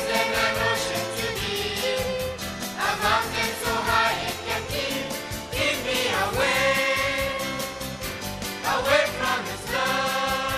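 A young girl singing a solo through a microphone and PA, with long held notes over a sustained backing from a children's choir.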